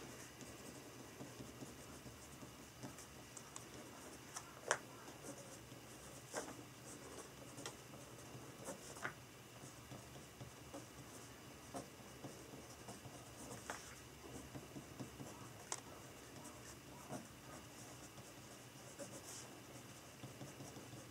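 Pen writing on notebook paper: faint, irregular scratching strokes with scattered light ticks, the sharpest about five seconds in.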